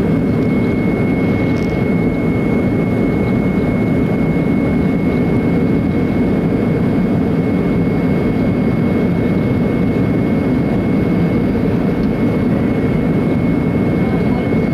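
Steady engine and airflow noise inside an airliner's cabin during the climb after takeoff, with a thin steady whine above it.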